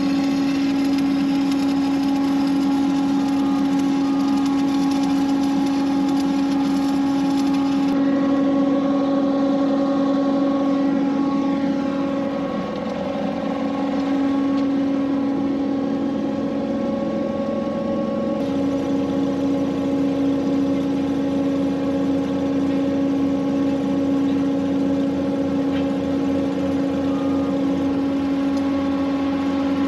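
An engine running steadily at one speed, a constant hum with no revving.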